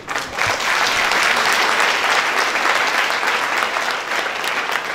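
Audience applauding: many hands clapping together, starting all at once and thinning toward the end into scattered separate claps.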